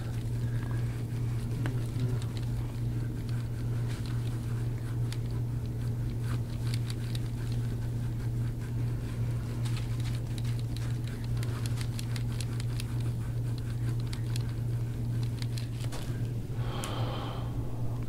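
Faint, irregular crackling and clicking as a hand-held soft-tissue tool is worked over the oiled skin and muscle between the spine and the shoulder blade. A steady low hum runs underneath it.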